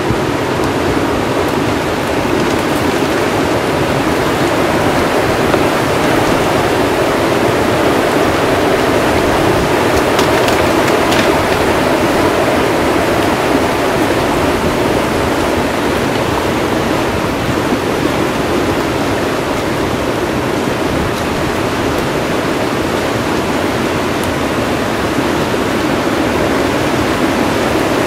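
Head of a flash flood moving down a canyon wash: a steady, loud rush of muddy water pushing a mass of logs and woody debris, with a few faint clicks about ten seconds in.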